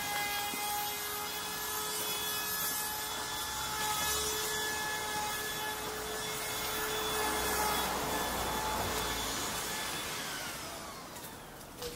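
A vehicle passing: a steady whine with several tones over a rushing noise, which builds, then drops in pitch and fades as it moves away.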